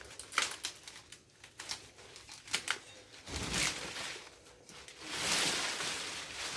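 Rustling and crackling of sugarcane stalks and dry leaves being handled, with a few scattered sharp clicks and a dull thud. The rustling grows louder and steadier about five seconds in.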